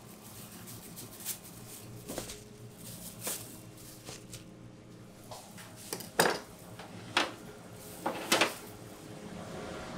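Metal sheet trays and a bread knife knocking and clinking as the buns are handled: about nine separate sharp knocks at irregular intervals, the loudest just after six seconds in, over a faint low steady hum.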